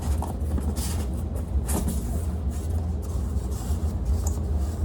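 Rustling and handling of boxed parts and packaging, in short scattered strokes, over a steady low background rumble.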